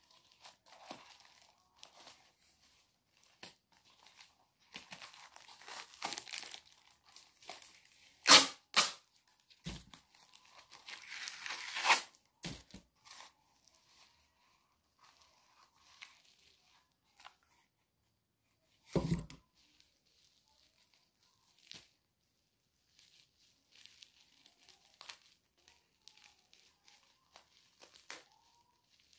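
A package being opened by hand: scattered rustling and crinkling of the wrapping, a sharp rip about eight seconds in, a longer tearing sound building up to about twelve seconds, and a dull thump about nineteen seconds in.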